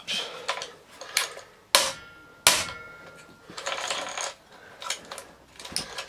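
Metal parts of a Hoover Senior upright vacuum's underside clicking and clanking as they are worked by hand. Two sharp metallic knocks come about two and two and a half seconds in, the second ringing briefly, followed by a short run of small rattling clicks.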